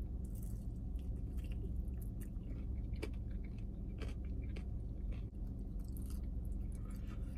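A person biting and chewing crispy fried chicken, with a few sharp crunches scattered through, over a low steady hum.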